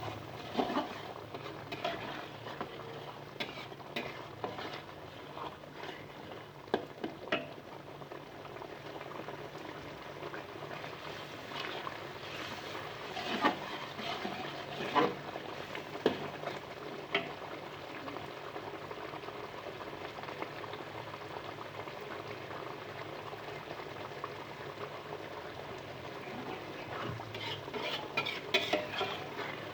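Food cooking in a pan with a steady sizzle while being stirred, with scattered sharp clinks and scrapes of a utensil against the pan.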